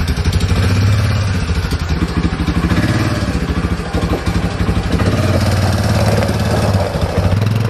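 ATV (quad) engine running as the machine drives slowly, its note rising and falling a little with the throttle.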